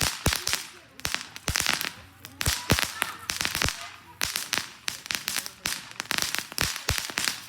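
Small consumer fireworks going off in a rapid, irregular string of sharp cracks and pops. They come in dense bursts about a second apart, with a fizzing hiss between them.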